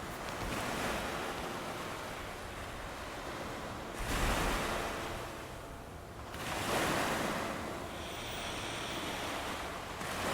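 Ocean waves washing in, as a steady surf hiss with swells about four seconds in and again near seven seconds.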